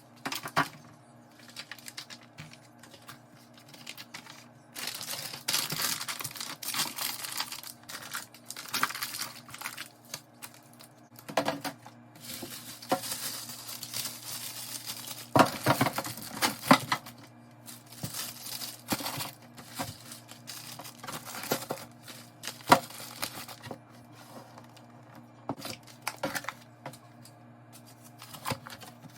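Plastic food packaging crinkling and rustling, with containers clicking and knocking as they are handled and set down in a refrigerator being cleaned out, one sharp knock louder than the rest about three-quarters of the way through. A low steady hum runs underneath.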